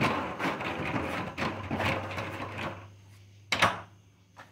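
Handling noise from a handheld camera being moved around: uneven rubbing and rustling, then a sharp knock about three and a half seconds in and a small click near the end.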